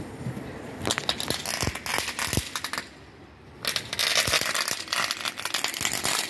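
A Meteorite crackling firework going off: rapid, dense crackling in two runs of about two seconds each, with a short lull between them.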